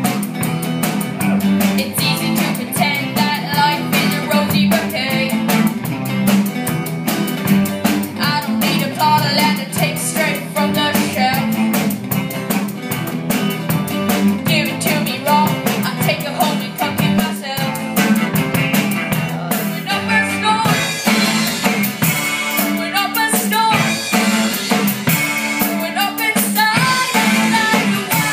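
Live rock band playing: a Tama drum kit with cymbals keeping a steady beat, under electric guitar and acoustic guitar. The high end gets brighter and fuller about twenty seconds in.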